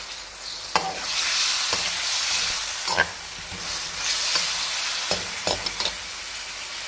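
Slit whole bitter gourds sizzling in hot oil in a metal kadai over a medium flame, a steady hiss broken by a few sharp clicks as a spatula turns them against the pan.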